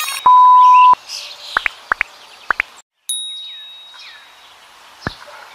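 Cartoon swear-censoring bleep: one steady high beep lasting about two-thirds of a second, the loudest sound. It is followed by a few short rising chirps, and about three seconds in a chime dings and slowly fades.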